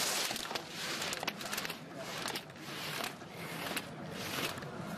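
Slalom skis scraping over hard, icy snow in quick rhythmic turns, a hiss with each turn about every half to three-quarters of a second. Sharp clacks of slalom gates being struck come in between.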